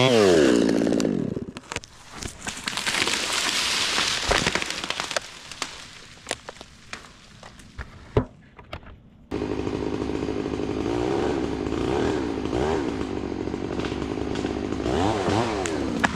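Chainsaw cutting under load, its engine note wavering, then winding down about a second in. Several seconds of quieter scattered knocks and cracks follow, then a chainsaw idling steadily with a few short blips of the throttle.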